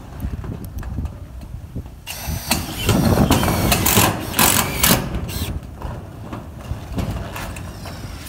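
Cordless Milwaukee M18 screw gun driving self-drilling screws into metal roofing sheets, in several short bursts. The bursts are loudest from about two to five and a half seconds in.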